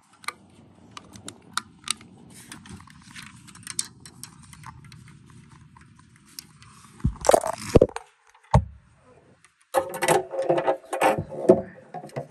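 Close handling noise as things are moved about near the phone. There are scattered clicks at first, then a few heavy knocks about seven to eight and a half seconds in, and a rough rubbing, scraping sound near the end.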